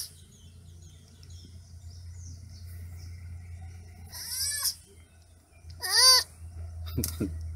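Baby sloth calling twice, high-pitched, each call rising then falling in pitch: a longer call about four seconds in and a shorter, louder one about two seconds later.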